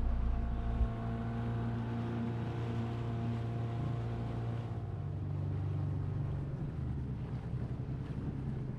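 Small dinghy outboard motor running steadily under way. Its note shifts about halfway through.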